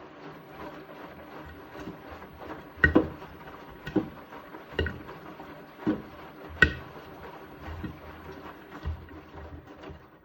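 Beko WTK74011W washing machine drum turning a load of bedding in water, with a steady motor hum and a run of sharp thuds about a second apart as the heavy wet load drops in the drum.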